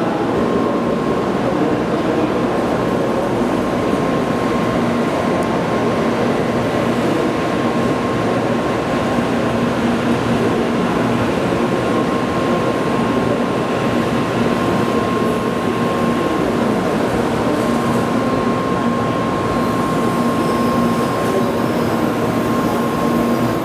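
Steady noise of a Shinkansen train at the platform, with a constant high tone and a lower hum running under it and no rise or fall.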